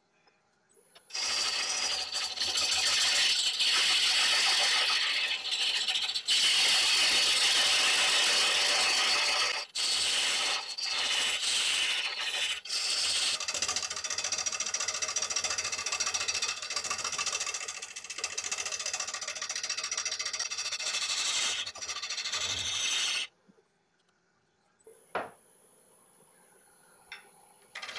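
Carbide hollowing tool cutting into the inside of a spinning yew bowl blank on a wood lathe: a loud, harsh scraping hiss with a few brief breaks. It starts about a second in and stops abruptly about 23 seconds in.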